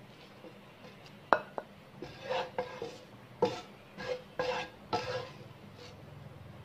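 Wooden spatula scraping cooked samosa filling across a non-stick frying pan into a bowl, in a string of short scrapes. There is a single sharp knock about a second in.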